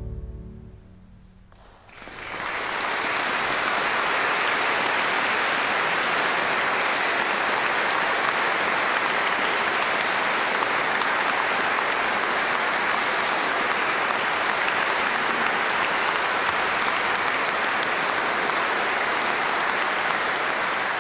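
The final chord of a pipe organ dies away in a reverberant church, and about two seconds in an audience breaks into steady applause that carries on.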